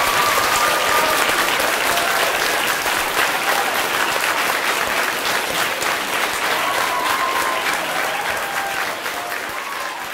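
Large audience applauding after a children's choir song, the clapping slowly fading toward the end.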